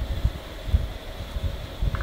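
Wind buffeting the microphone: an uneven, gusty low rumble over a faint steady hum.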